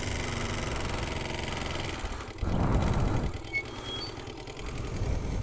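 Small ATV engine running, with a louder surge of engine and rushing noise about two and a half seconds in that lasts just under a second.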